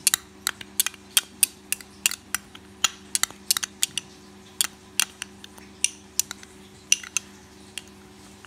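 Metal spoon clinking and tapping against a ribbed glass bowl as spices are spooned onto raw chicken: many sharp, irregular clinks, over a steady low hum.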